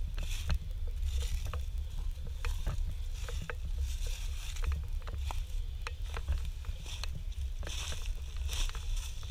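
Footsteps crunching through dry fallen leaves at a walking pace, about one step every three-quarters of a second, over a steady low rumble of wind on the microphone.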